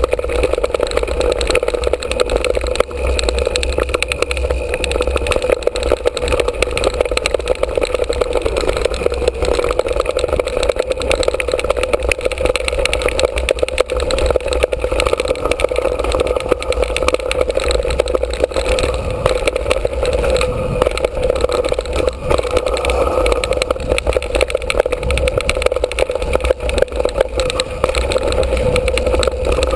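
Continuous loud rattling rumble of a mountain bike riding fast down a dirt trail: tyres on packed dirt and loose stones, chain and frame chatter, and wind. It is picked up by a camera mounted on the bike itself, so every jolt comes through as rattle.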